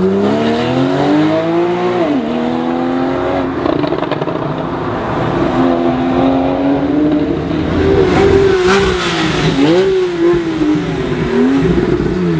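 Porsche 991 Carrera 4S flat-six engine revving and accelerating. Its pitch climbs for about two seconds and then drops sharply. It holds steady for a while, then rises and falls several times in quick blips in the second half, and falls away at the end.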